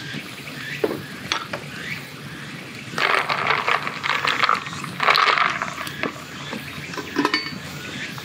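Ice cubes clinking and rattling in a tall glass of whisky-and-soda highball as it is stirred with a stirrer, with scattered single clinks and two louder spells of stirring in the middle.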